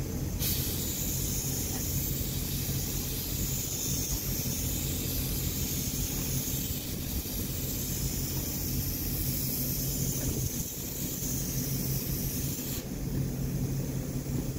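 Compressed-air gravity-feed paint spray gun hissing while its trigger is held, switching on about half a second in and cutting off sharply near the end as the trigger is released. A steady low machine hum runs underneath.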